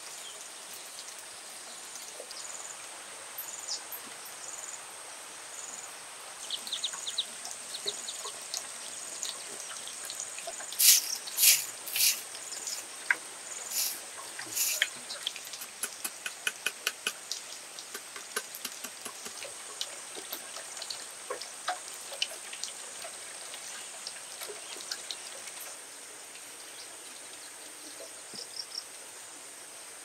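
A steady high insect drone with a short chirp repeating about once a second during the first several seconds. From about eleven seconds in comes a run of sharp clicks and snaps, loudest at first, then lighter and quicker for several seconds, as a hand tool works dry grass stems.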